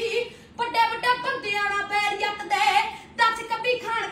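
A boy singing a Punjabi song solo, in a series of long held notes that waver and bend in pitch, with a brief break about half a second in.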